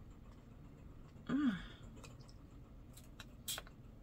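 A woman's short, breathy "hmm" whose pitch rises and falls, about a second in, then a few light clicks near the end as a small bottle is handled.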